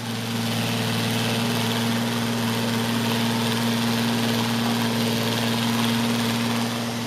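Neato XV-11 robot vacuum cleaner running as it drives along the wall, its motors giving a steady hum with a constant low tone and a hiss over it.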